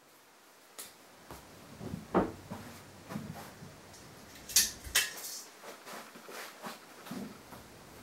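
A few soft knocks and rustles of handling, then two sharp clicks about four and a half and five seconds in: the ceiling fan light kit's pull-chain switch being pulled to turn the light off.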